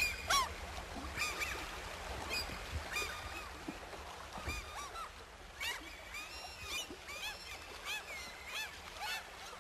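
A group of birds calling: many short, overlapping calls that rise and fall in pitch, over a low steady rumble.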